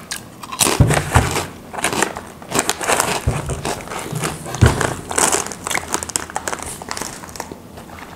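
Potato chip packet crinkling and rustling as it is handled, with a few soft thumps in the first half.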